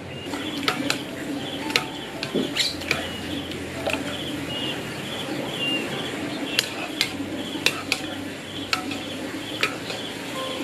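Metal mesh skimmer clinking and knocking against a frying pan as boiled macaroni is scooped out of the water, a dozen or so sharp irregular knocks. A short chirp repeats steadily in the background.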